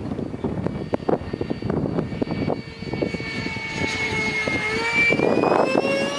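Whine of a 90mm ducted-fan RC jet in flight, dipping slightly in pitch, then rising and getting louder near the end as it comes round or throttles up.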